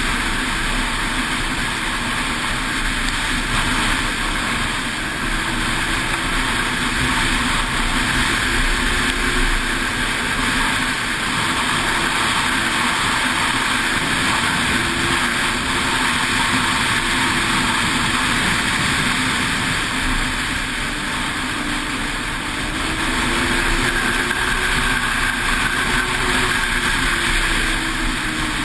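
Ski-Doo 600 X-RS snowmobile engine running steadily at trail speed, its pitch climbing and easing a little near the end.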